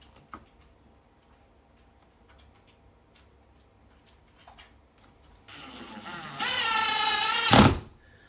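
Power drill driving a hinge screw into a wooden door frame: a few light handling clicks, then the motor starts up about five and a half seconds in and runs at a steady whine for about two seconds, with a knock as the screw seats and the drill stops.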